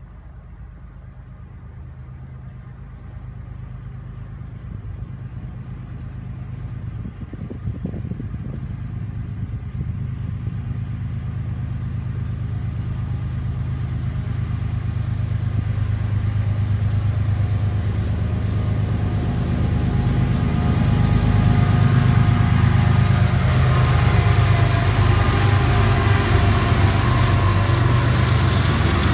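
Diesel locomotives of a CSX freight, led by GE ES44AC No. 911, approaching under power: a low engine drone that grows steadily louder as they close in, with wheel and rail noise building in the last few seconds as the lead unit draws alongside.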